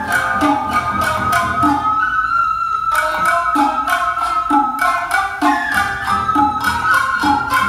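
Music: a held melody over a steady beat, the beat dropping out for about a second some two seconds in.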